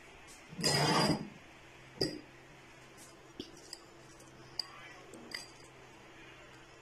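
Metal spoon clinking against a glass bowl while scooping syrupy candied fruit pieces out and setting them on a steel mesh strainer. A short scraping noise comes about a second in, then one sharp clink and a few lighter taps and clicks.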